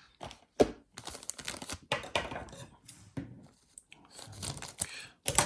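Packaging being torn open and crinkled by hand: irregular rips and rustles of card and plastic wrapping, with a sharp tear near the end.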